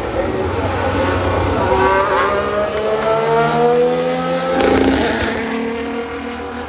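Formula 1 car's turbocharged V6 hybrid engine at high revs as the car accelerates past, its pitch climbing steadily for a few seconds, then dropping away after about five seconds as it goes by.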